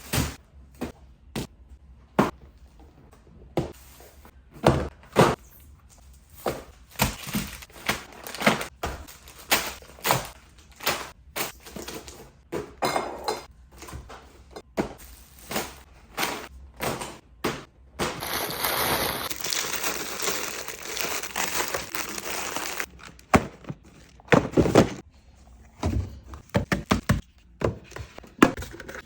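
Groceries being unpacked and put away in a kitchen: a long run of knocks, taps and thunks as containers and packages are set down and handled. About eighteen seconds in there are a few seconds of steady noise, then the knocks resume.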